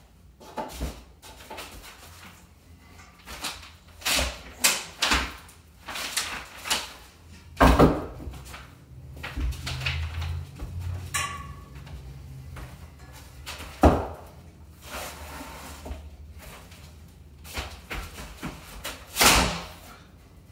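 Irregular knocks, clunks and scrapes of a heavy cast iron radiator being rocked and shifted on a wooden furniture dolly, with louder thuds about 8, 14 and 19 seconds in.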